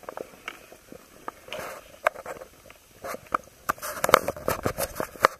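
Skis scraping and sliding over snow, with many irregular sharp clicks and knocks; the scraping swells twice, about a second and a half in and again around four seconds in.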